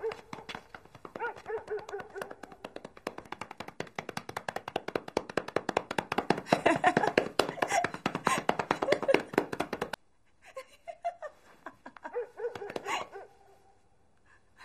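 Quick, continuous fist thumps pounding on a person's back in a back massage, with a woman laughing through them; the pounding stops suddenly about ten seconds in, leaving a few softer laughs.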